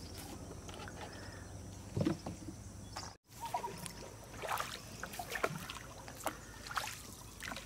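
Small boat being paddled with a bamboo pole: soft splashes and trickling as the pole dips and pulls through the water, with scattered knocks. There is a brief cut about three seconds in.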